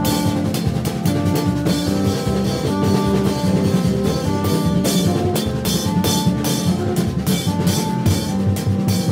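Haitian rara-style band playing: hand drums beating a fast, dense rhythm under steady held notes from long blown tubes (vaksen), several pitches sounding together.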